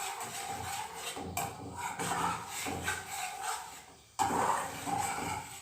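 A utensil scraping and stirring in a pan on the stove, in irregular rubbing strokes; it dips briefly, then a sudden louder scrape comes about four seconds in.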